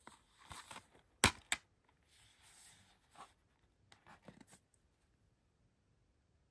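Plastic Blu-ray case being handled and snapped open: two sharp clicks a little over a second in, then rustling and light clicks of the plastic case and its paper insert.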